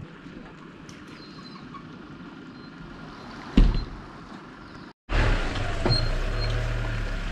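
Steady outdoor background noise broken by one loud knock about halfway through. After a momentary dropout, a louder steady low hum follows, a car's engine running.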